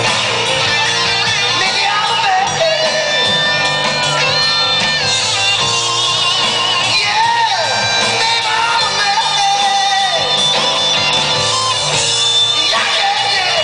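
Live rock band playing: a singer over electric guitar and drums, steady and loud.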